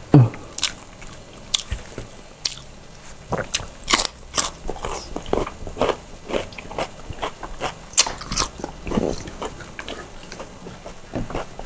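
Close-up eating sounds from a mukbang of grilled chicken with rice and raw cabbage: irregular crisp crunches and bites with chewing in between, the loudest crunch just after the start.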